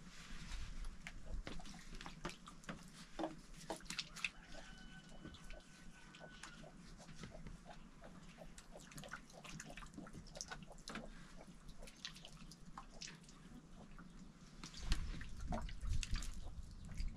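A cow being milked by hand into a plastic jug: irregular squirts and drips of milk hitting the inside of the jug, getting a little louder near the end.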